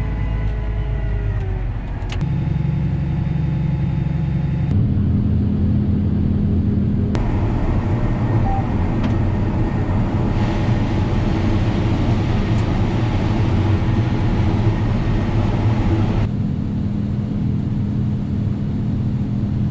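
John Deere S690 combine running under load while harvesting corn: a steady engine and machinery drone whose pitch and tone shift abruptly a few times.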